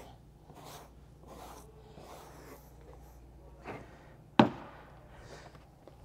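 Hand brush sweeping over a carpet floor mat in faint, even swishes a little more than one a second, working a peroxide finisher into the pile. About four and a half seconds in comes a single sharp click, the loudest sound.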